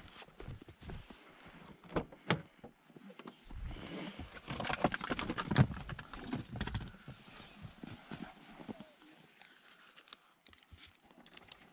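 Handling noise as a hunting dog is taken out of a car's boot on a leash: two sharp knocks about two seconds in, then a busier stretch of knocking, rustling and scuffing in the middle as the dog gets out, with quieter scuffs of paws and boots in snow towards the end.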